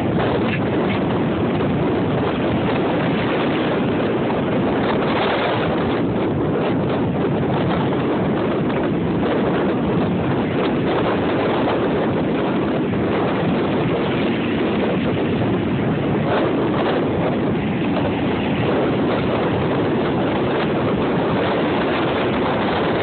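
Ocean surf breaking and washing up the beach, with wind buffeting the phone's microphone: a steady, loud noise with no clear breaks.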